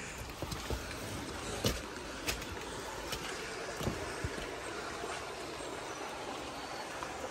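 Steady rush of a shallow stream flowing over rocks, with a few scattered light knocks over it.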